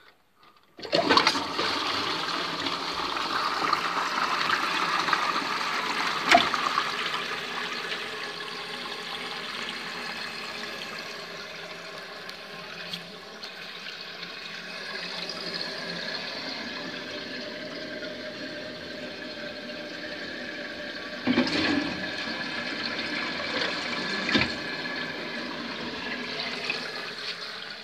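Concealed toilet cistern flushed about a second in: a loud rush of water for several seconds, then the cistern refilling steadily through its fill valve, with a couple of knocks near the end. It is a test flush to check whether the refitted outlet joint under the tank leaks.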